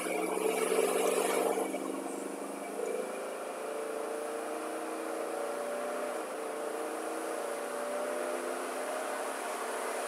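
A 2002 Chevy Tahoe's V8 engine pulling hard at full throttle, its note climbing steadily as the revs rise. It runs cleanly, with no misfires, on a newly replaced ignition coil.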